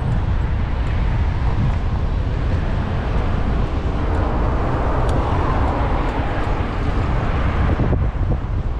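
Wind rushing over an action camera's microphone while cycling, mixed with steady city street traffic; a car passing alongside swells the noise around the middle.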